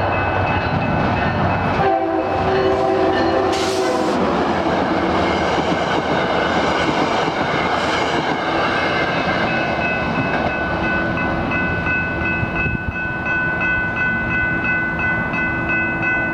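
Metro-North BL20 diesel locomotive's horn sounding one chord blast of about two seconds, starting about two seconds in, over the loud rumble and wheel clatter of the passing train. A steady high ringing tone joins the train noise about halfway through.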